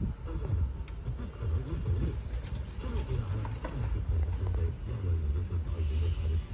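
Low, uneven rumble of a running vehicle engine, with faint voices in the background.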